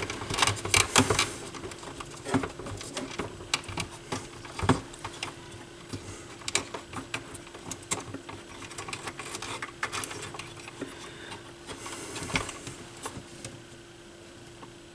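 Irregular clicks and knocks of small turntable parts being handled and fitted around the RCA cable mount, over a steady faint hum.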